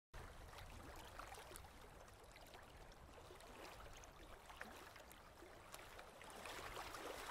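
Faint water lapping and trickling at a lake's edge, a little louder near the end.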